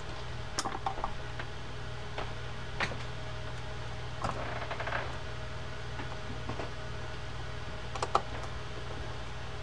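Scattered small metallic clicks and taps as a set screw is fitted by hand into the handle nut of a Penn GTO 220 reel, the loudest pair of clicks near the end. A steady low hum runs underneath.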